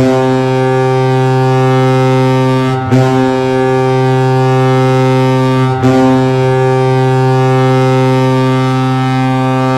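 Colorado Avalanche arena goal horn, a low-pitched air horn, sounding three long blasts of about three seconds each with only a brief dip between them, the signal that the team has scored.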